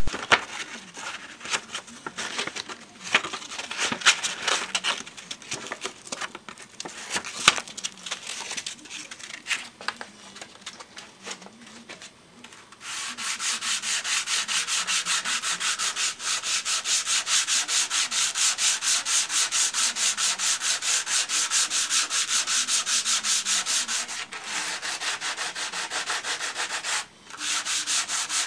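Hand sanding cured gel coat on a fiberglass Laser daggerboard with 220-grit sandpaper wrapped around a small wooden block. Scattered rustles and taps for the first dozen seconds, then quick, even back-and-forth strokes, broken by two short pauses near the end.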